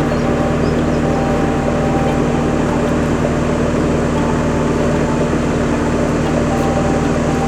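An engine running at a steady, unchanging speed, with a constant hum of a few fixed pitches over a steady noise.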